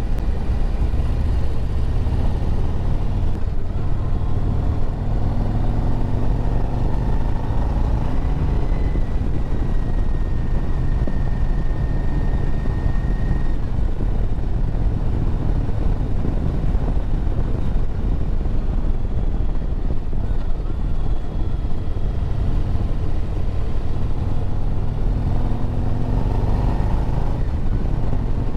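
2024 Harley-Davidson Road Glide's Milwaukee-Eight 117 V-twin running at road speed under heavy wind rush, steady, with the engine note rising a couple of times.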